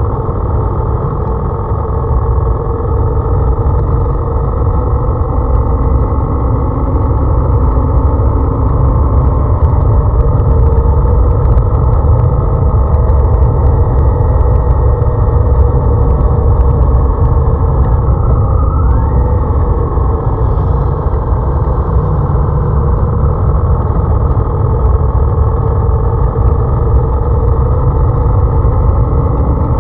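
Motorcycle engine running at road speed under heavy wind rumble on the microphone. About two-thirds of the way through, the engine's pitch dips and then climbs back.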